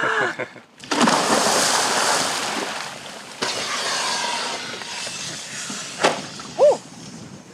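A person splashing into the sea feet first, with water churning for a couple of seconds. A second sudden hiss a few seconds in as the automatic life vest fires and inflates. A short gasp near the end.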